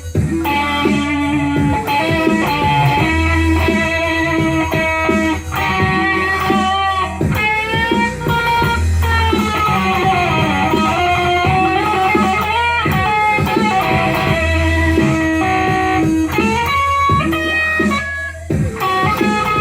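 Instrumental music: an electric guitar solo in a blues style, with bent, gliding notes over a steady bass line.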